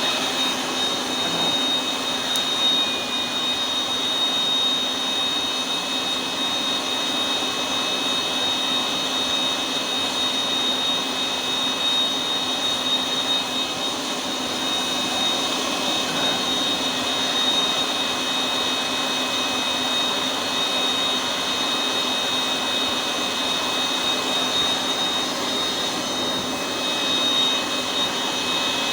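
Homemade forge burner running, a steady roar of rushing air and flame with a constant high whine over it.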